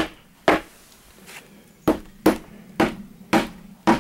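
A short-handled sledge hammer striking the base of a cut-through wooden porch post to knock it out sideways: about seven sharp knocks at uneven intervals, each dying away quickly.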